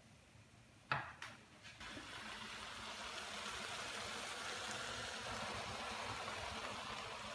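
Chopped peppers and tomatoes sizzling in a frying pan: a steady, even sizzle that starts about two seconds in. Just before it come one or two short knocks.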